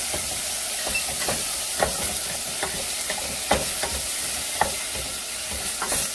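Beef pieces frying in canola oil in a pot, sizzling steadily, while a utensil stirs them with irregular knocks and scrapes against the pot.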